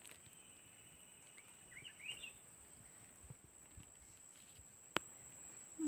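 Quiet rural ambience: a bird gives a few faint, short rising chirps about two seconds in, over a steady thin high-pitched tone, and a single sharp click comes near the end.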